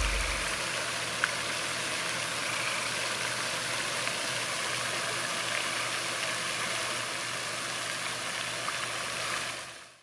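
Floating pond fountain's spray splashing steadily onto the water surface, an even hiss with a faint low hum beneath it, fading out near the end.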